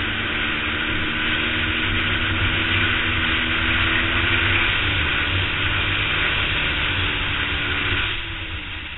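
Twin-cylinder race motorcycle engine running hard at steady revs down a straight, heard from an onboard camera under heavy wind rush. Near the end the sound drops away as the throttle closes.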